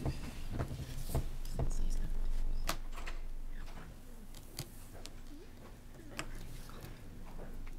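Low murmured talk in a meeting room, with scattered small knocks and rustles from people moving at the council table. It grows quieter about halfway through.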